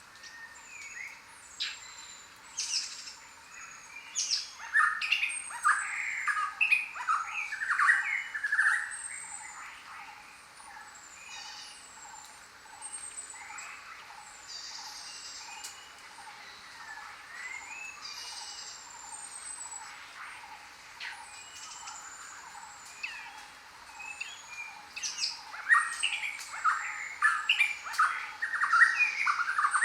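A chorus of many birds calling. Thin, high whistles, some sliding down in pitch, repeat throughout. Loud bursts of rapid chirping calls come twice, a few seconds in and again near the end.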